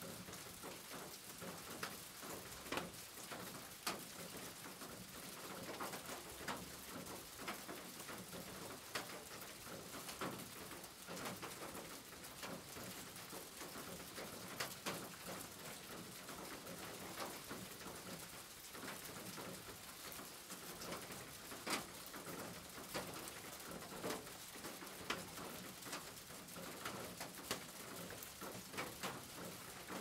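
Steady rain on a corrugated tin roof: an even hiss with frequent sharp taps of drops striking the metal. Birds call in the background.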